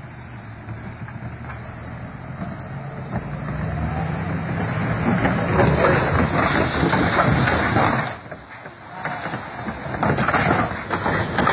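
Heavy truck engine running low and steady, then a loud rough rush of noise builds as the truck slips off the edge of a wooden bridge. After a brief lull, water splashes and churns as the truck tips into the river near the end.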